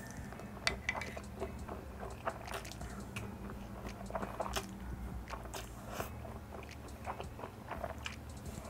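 A person eating instant noodles close to the microphone: slurping and chewing, with irregular wet smacks and clicks.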